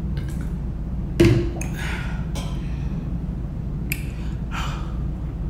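A single knock about a second in as a plastic water bottle is set down on the counter, then a few hissing breaths in and out through the mouth, a person cooling a mouth burning from very spicy noodles. A steady low hum runs underneath.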